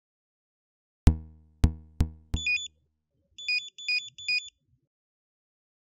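Synthesized audio logo sting: four deep thuds in quick succession, coming closer together, then short high electronic chirps, one and then a run of three.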